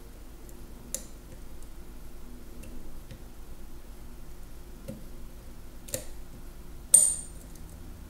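Small metallic clicks from an EVVA MCS lock cylinder's core and pins as the core is wiggled and worked out of the housing, with one sharp, ringing metal click near the end.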